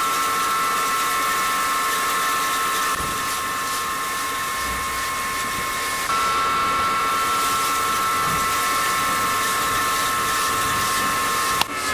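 Small electric motor driving a miniature rice mill, running with a steady high whine over a grinding hiss. A sharp click near the end, as the motor's switch is pressed.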